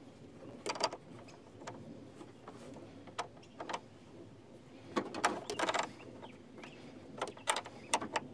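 A small wrench tightening a battery cable clamp onto the terminal: scattered metallic clicks and short scrapes, with a denser run of clicking about five seconds in.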